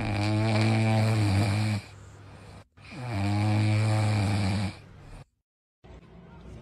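Sleeping golden retriever snoring: two long, steady snores of about two seconds each with a short breath between them.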